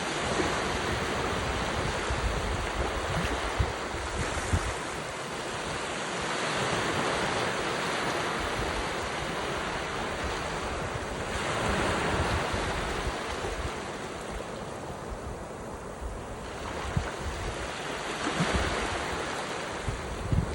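North Sea waves breaking and washing onto the shore, rising and falling in slow surges every few seconds. Wind buffets the microphone with low rumbles and a few sharp knocks.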